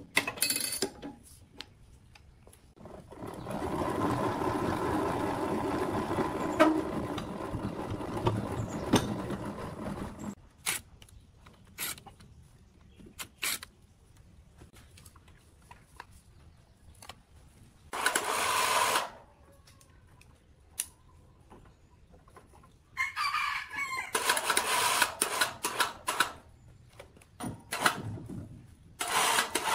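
A rooster crowing in the later part, with scattered knocks and clanks of metal parts being worked on a rusted woodworking machine. A steady rushing noise runs for about six seconds in the first third.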